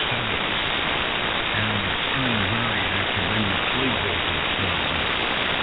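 Ham radio receiver audio on the 75-metre band in single-sideband mode: a loud, steady static hiss, which is local radio-frequency interference, nearly buries a faint sideband voice.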